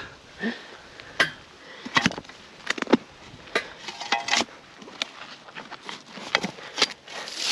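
Irregular sharp knocks and scrapes of tools working in a post hole, about a dozen spread unevenly, over a low background hiss.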